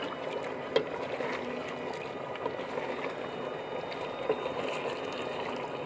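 Beef curry simmering in a metal pot over a wood fire, stirred with a wooden ladle, with a couple of sharp knocks.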